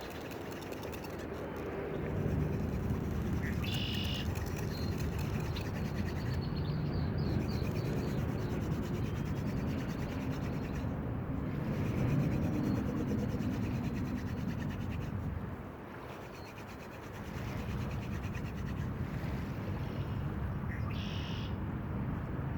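Wooden spindle of a hand drill fire set spun back and forth between the palms, grinding against the hearth board with a steady low rubbing, broken by a short pause about two thirds through. A bird chirps twice.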